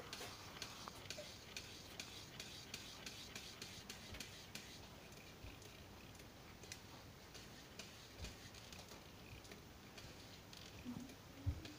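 Faint, irregular light clicking, about two ticks a second, from a homemade drum of CDs spinning on a wire axle in a cardboard box, driven by a neodymium magnet on the drum and magnets moved by hand.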